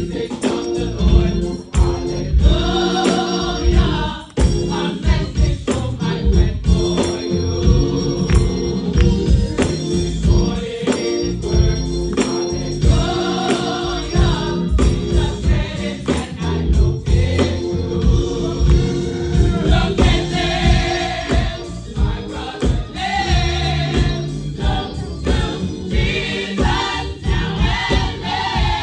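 Gospel choir singing in harmony over a live band, with a steady beat in the drums and bass.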